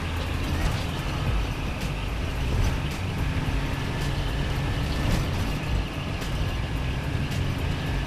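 Car engine running steadily, a low rumble with scattered light clicks over it.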